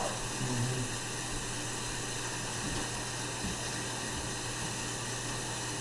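Steady hiss with a constant low hum and no distinct events: bathroom room tone.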